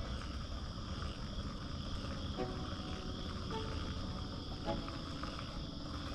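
Steady chorus of insects, a continuous high buzz.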